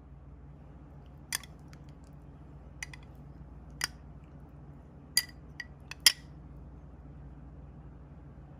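Metal spoon clinking against a glass bowl and a plate: about six sharp clinks, the loudest two close together just past the middle.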